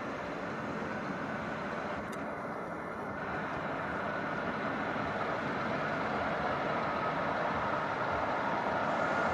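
Truck-mounted loader crane running: the truck engine powers the crane hydraulics in a steady hum with a faint whine while the boom and grab are folded in. The sound grows slowly louder.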